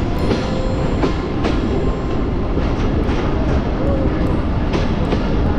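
A moving passenger train heard from on board: the steady rumble of the wheels on the track, with irregular clacks as the wheels pass over rail joints.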